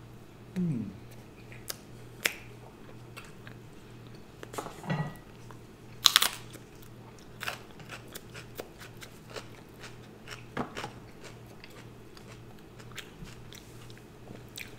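Close-up eating sounds: scattered bites and wet chewing of fried chicken tenders, fries and chiles, with a sharp crunch about six seconds in.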